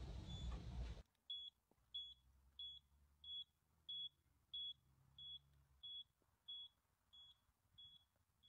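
Rumbling noise that cuts off about a second in. Then a single high electronic beep repeats steadily, about three beeps every two seconds.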